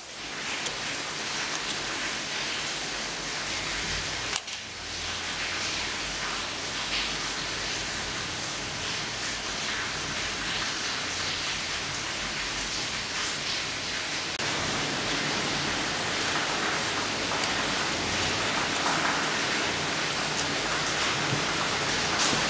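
Steady hiss, with faint crinkling as thin aluminium soda-can sheet is pressed and handled.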